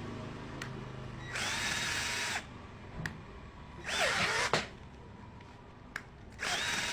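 Ken 12V cordless drill driver running in three short bursts, each time with a motor whine that rises as it spins up. The loudest middle burst has a dropping pitch as the motor loads up, boring into wood with a 25 mm bit.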